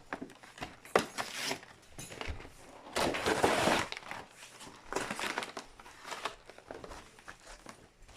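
Plastic packaging crinkling and tearing as a trading-card collection box is unwrapped and opened, in irregular bursts with a longer, louder stretch about three seconds in.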